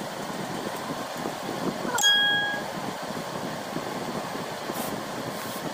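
Steady background noise, broken about two seconds in by one short ringing tone that lasts about half a second and fades.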